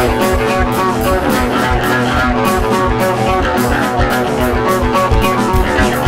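Guitar-led rock music playing an instrumental passage, with bass under it and a steady beat.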